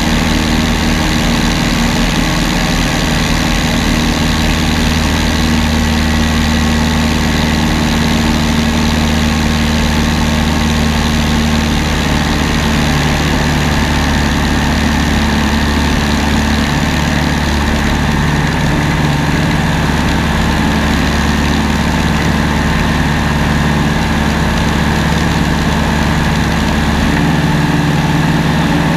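A propeller aircraft's engine running steadily in flight, heard close up from the aircraft itself. It makes a continuous drone under a rush of air noise, and its pitch shifts slightly a couple of times.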